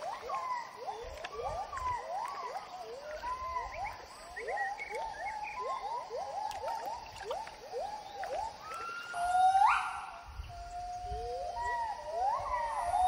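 Gibbons singing: a run of short rising whoops, two to three a second, then longer, louder rising calls near the end.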